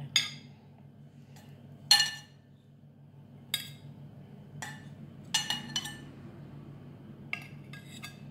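Metal tongs clinking against ceramic plates as grilled beef patties are served out: a string of about nine short, sharp clinks with a brief ring. The loudest come just after the start and about two seconds in.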